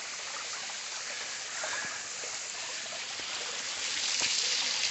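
Small waterfall on a creek: a steady rush of falling, splashing water, swelling a little near the end.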